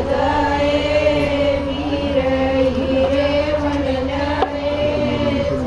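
Voices chanting in unison, holding one long, slightly wavering note.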